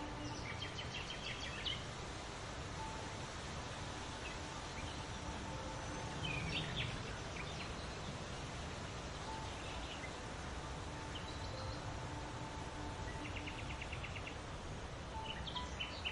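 Songbirds calling: scattered short chirps and a quick, evenly pulsed trill near the end. They sound over a steady background hiss of outdoor ambience.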